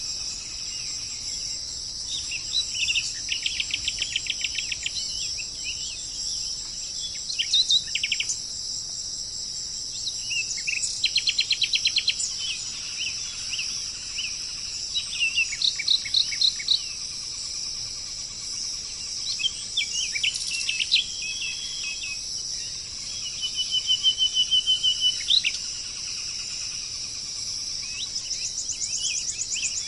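Songbirds singing: short trills and chirped phrases repeated every few seconds, over a steady high insect chorus of crickets or cicadas.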